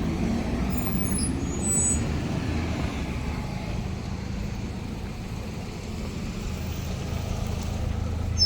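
City street traffic: a steady low rumble of vehicle engines passing, louder in the first couple of seconds.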